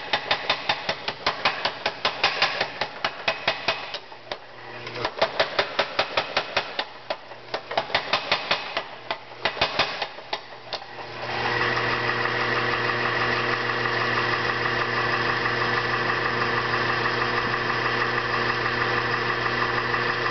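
25 lb Little Giant mechanical power hammer drawing out 7/8-inch round stock: runs of rapid blows, several a second, with short pauses between runs. About eleven seconds in the blows stop and a steady hum of the hammer's drive left running takes over.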